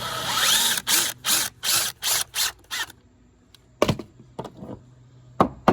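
Power driver driving screws into composite deck boards: a short run of the motor, then six quick trigger bursts. A sharp knock follows, and near the end a fast run of sharp clicks starts.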